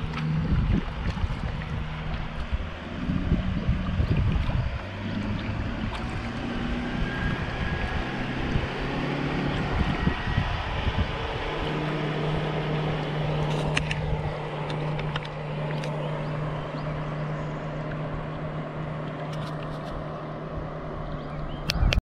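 Wind and water noise on a kayak moving across open water, with a steady low hum underneath. A few sharp clicks come near the end, and the sound cuts off suddenly at the very end.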